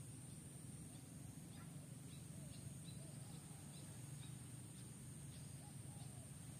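Faint outdoor ambience: a steady low rumble and a steady high hiss, with scattered faint short chirps and calls, typical of distant birds.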